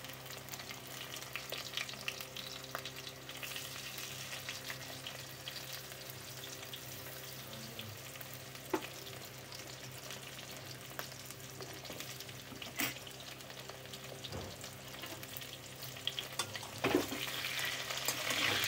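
Potato chunks frying in hot oil in a metal kadai: a steady sizzle with scattered sharp pops and clicks. Near the end a metal spatula stirs through the pan and the sizzling grows louder.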